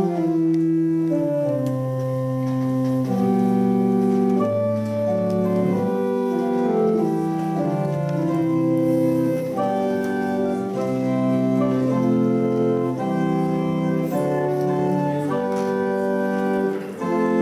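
Church organ playing the postlude: a steady run of held chords, one moving into the next.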